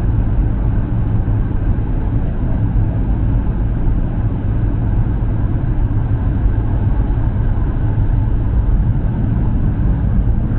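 Steady jet cabin noise inside a Boeing 737-900: the engines and airflow make an even, loud, low-pitched hum.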